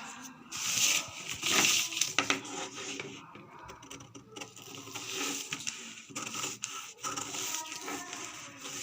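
Tailoring scissors cutting through fabric: irregular crunching snips with rustling of cloth, loudest in the first couple of seconds.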